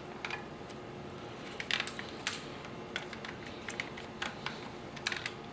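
Irregular light clicks and clinks of engine parts and hand tools being handled, with a small cluster about two seconds in and another near the end, over a steady faint hum.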